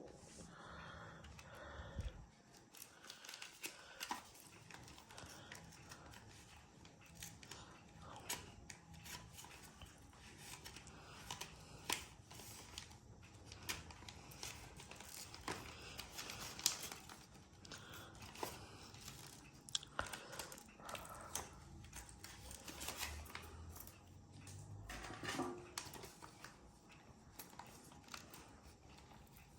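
A parcel's packaging being opened by hand. Plastic and paper crinkle, tear and rustle, with many scattered sharp clicks and snips.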